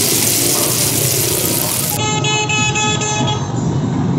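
Hot oil sizzling hard as a large katlama deep-fries in a wide iron karahi. About two seconds in, it gives way to street noise, with a vehicle horn tooting in a rapid series for about a second.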